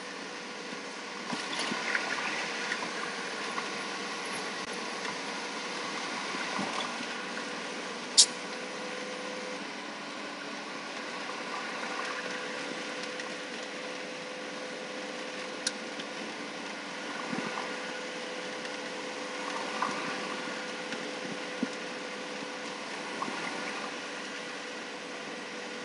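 Steady road and engine noise heard inside a moving vehicle's cabin at highway speed, with a constant hum under the rumble. A single sharp click about eight seconds in, and a fainter one later.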